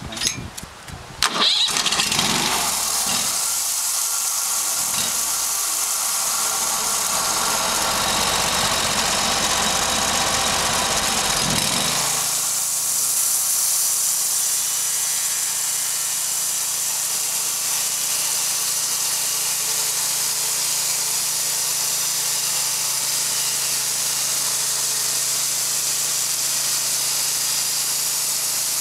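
Sawmill running and sawing a log's edge: a loud, steady mechanical din with a high hiss over it. There are a few knocks in the first second or two, and about twelve seconds in the low rumble drops away, leaving a steadier high hiss.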